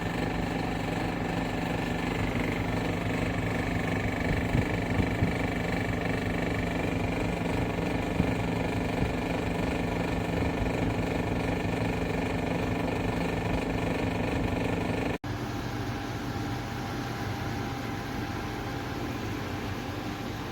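KGOGO portable air conditioner running: a steady mechanical hum of compressor and fan with a constant airy rush. About 15 seconds in it cuts abruptly to a slightly quieter version of the same hum.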